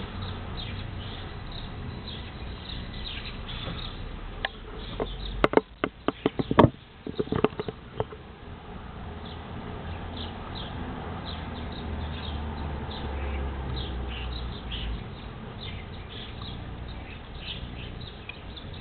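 Starlings and other garden birds chattering with many short squeaky chirps throughout. A rapid cluster of sharp knocks and clicks, the loudest sound, comes about five to eight seconds in. A low steady rumble runs underneath.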